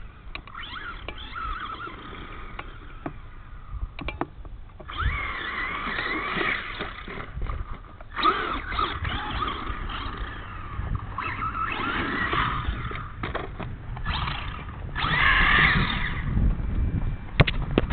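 Traxxas Stampede RC monster truck driving on dirt: its motor whines in four or five bursts, the pitch rising and falling as the throttle is worked, with a couple of sharp knocks near the end.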